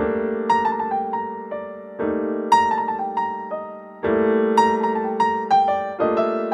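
Background piano music: a new chord struck about every two seconds, with a simple melody of single notes played above it.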